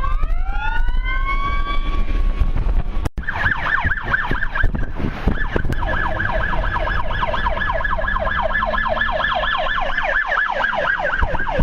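Emergency vehicle siren: a wail rising in pitch over the first couple of seconds, then, after a brief break, a fast yelp sweeping up and down several times a second.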